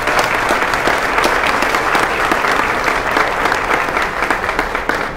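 Audience applause: many people clapping at once in a dense, steady patter.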